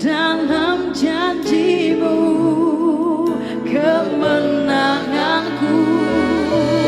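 Worship music: singers with vibrato over a band with sustained keyboard chords and bass.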